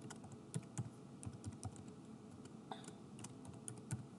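Typing on a computer keyboard: a run of faint, irregular key clicks as a password is entered.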